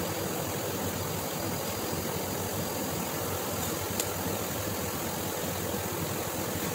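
Large engine lathe running steadily with an even mechanical hum, the spray-welding torch now shut off. A single sharp click about four seconds in.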